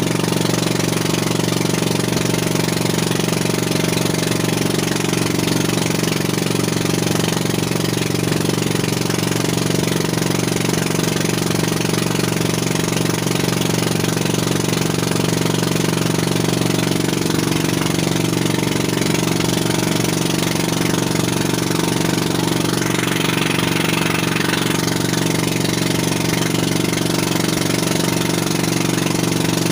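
Outrigger fishing boat's engine running at a steady speed while underway, an even, unchanging drone.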